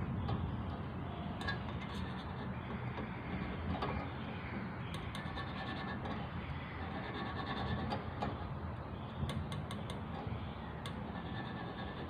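Steady low background rumble, with a few light clicks and taps as multimeter probes are handled against the microwave magnetron's terminals.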